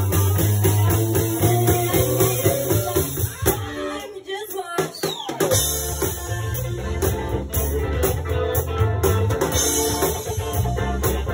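Live band playing a funk song with a heavy bass line, drums and guitar. Midway the bass and drums drop out for about two seconds, then the full band comes back in.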